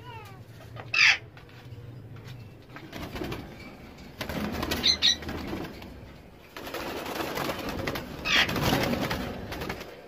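Caged ringneck parrots giving short, shrill screeches about a second in, twice near the middle and once near the end, between stretches of rustling wing-flapping.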